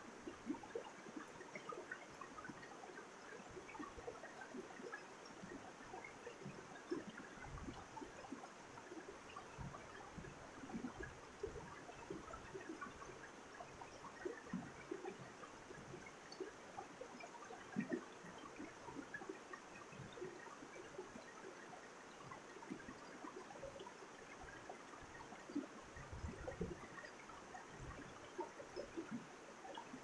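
Shallow mountain stream running over rocks in small cascades: a steady rush of water with many small, irregular splashes.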